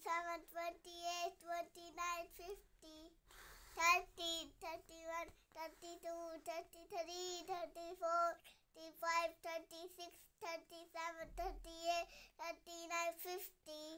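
A young girl's voice counting aloud in a sing-song chant, one number after another in a steady rhythm.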